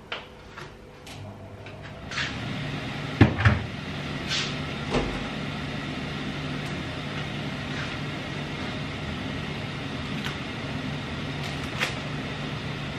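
Kitchen knocks and clatter, the loudest a sharp double knock about three seconds in, over a steady appliance hum that sets in about two seconds in and holds.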